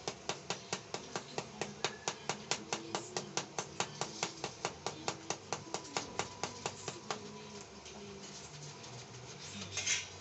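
Small hammer tapping a freshly welded steel frame joint at about five quick strikes a second, chipping slag off a stick weld. The tapping stops about seven seconds in, and a few louder metal strikes follow near the end.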